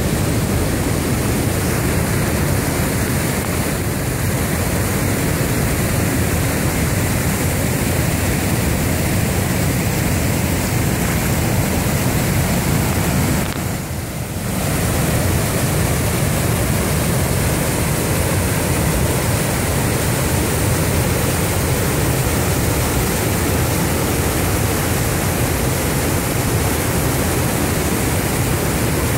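River rapids rushing over and between rocks: a steady, loud rush of white water, briefly quieter for about a second halfway through.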